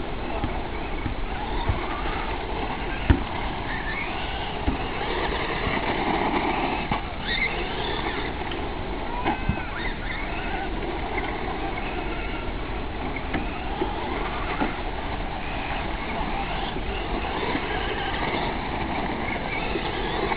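Electric RC car's motor whining, rising and falling in pitch as the car speeds up and slows, over a steady background noise, with a sharp click about three seconds in.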